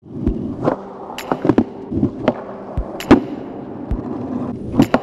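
Skateboard rolling on a smooth concrete floor, with a string of sharp clacks and thuds from the board's tail and wheels striking the ground. The loudest hit comes about three seconds in.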